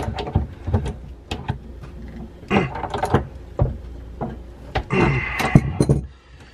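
Metal clicks, knocks and scrapes of a wrench on a tight supply-line nut at a brass shutoff valve under a sink, coming in short flurries as the nut is worked loose and the line comes off.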